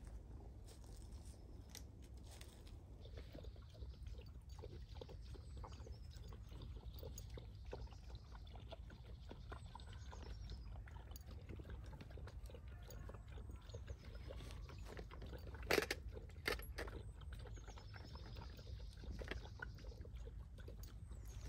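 Quiet outdoor ambience: a steady low rumble with small rustles and clicks of fabric and gear being handled on a tarp over dry leaves, and two sharp knocks about three-quarters of the way through.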